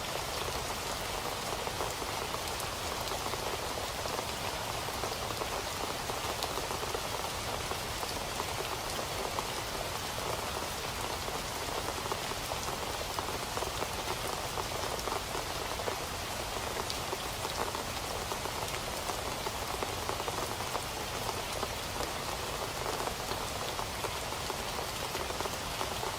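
Steady rain falling on a surface, a dense even patter of many small drops without letup.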